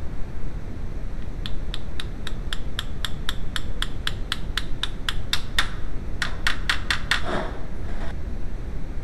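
Light, even hammer taps, about four a second for several seconds with a short break near the end, driving a new starter bushing into place in the transmission bellhousing. A steady low rumble runs underneath.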